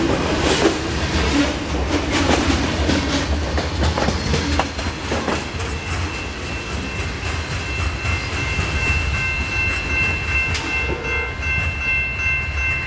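Covered hopper cars of a grain train rolling past, steel wheels clacking over the rail joints, the rumble easing as the tail end moves away. From about six seconds in a steady high ringing tone sounds over it.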